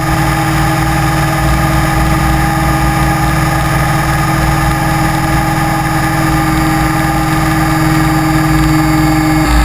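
Motor and propeller of an FPV model aircraft heard from the onboard camera, a steady drone with several held tones over rushing noise. The pitch shifts slightly near the end.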